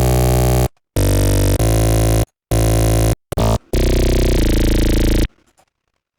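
Synthesizer patch of phase-modulated formant oscillators playing about five loud, noisy held tones with dense stacked overtones. Each tone starts and stops abruptly, with short silent gaps between them, and the pitch shifts partway through the second and the last.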